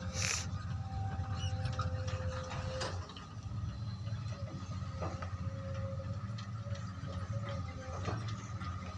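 Diesel engines of a hydraulic excavator and a dump truck running with a steady low rumble as the excavator raises its boom, with a thin steady whine and a few sharp knocks.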